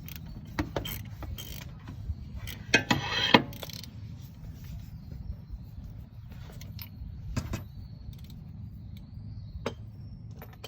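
Hand ratchet on a long extension clicking in short spells, with sharp metallic clicks and clinks, as a transmission pressure switch is worked loose; the busiest stretch is about three seconds in, over a low steady hum.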